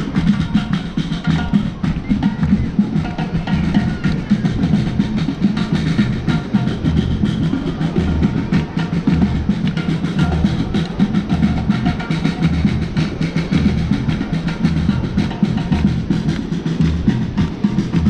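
Music with a drum beat: percussion and repeated bass-drum hits.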